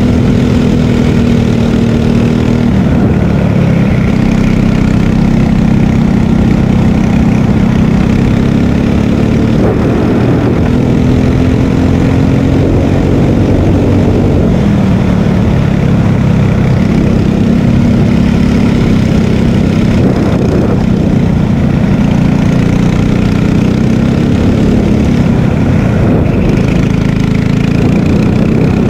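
Margay Ignite K3 kart engine at racing speed, recorded onboard. Its note rises and falls several times as the kart accelerates down the straights and slows into the corners, over an even hiss of air and tyre noise.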